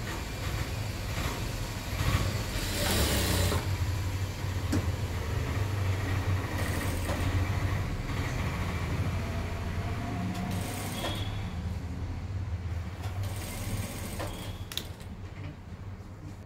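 Industrial sewing machine stitching a collar seam, its motor giving a steady low hum that eases off near the end.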